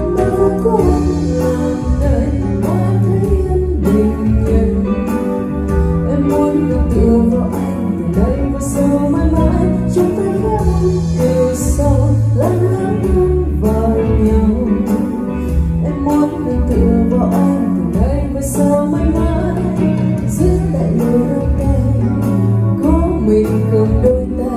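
A woman sings a Vietnamese ballad into a wireless microphone over a karaoke backing track with a steady beat and bass. Both are played through 4-Acoustic PCS-115Q loudspeakers and a subwoofer.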